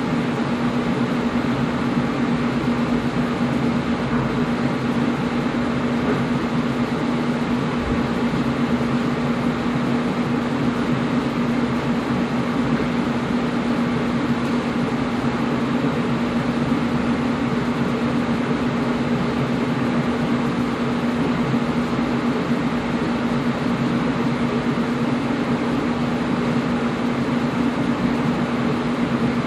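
Air conditioner running steadily: an even whooshing noise of the fan over a constant low hum.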